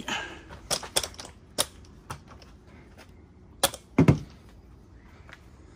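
Aluminium telescopic ladder being handled and set against a trailer. A string of sharp clicks and rattles from its sections and rungs comes in the first two seconds, then two louder knocks about four seconds in as it is set in place.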